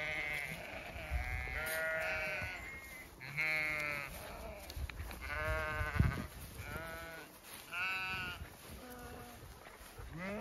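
Zwartbles ewes bleating, several sheep calling one after another, about one bleat every second or so.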